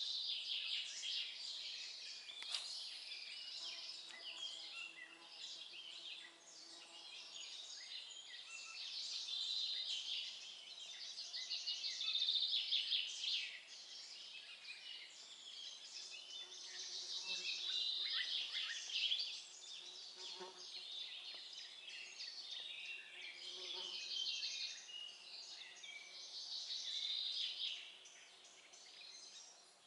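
Songbirds singing, with several chirping and trilling phrases overlapping, and a couple of faint knocks later on.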